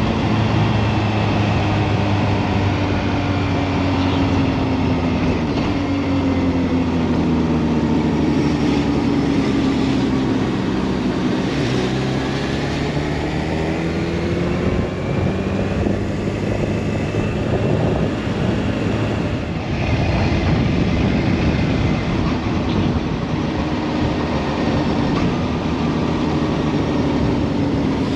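Kawasaki Ninja H2 SX's supercharged inline-four engine running as the motorcycle is ridden at low road speed, over a steady rush of road and wind noise. The engine's pitch falls over the first ten seconds or so, then rises again, following throttle and speed.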